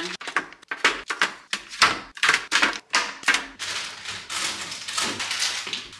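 Kitchen items being handled: an irregular run of sharp knocks, clicks and taps, several a second, like dishes, cutlery and a baking tray clattering.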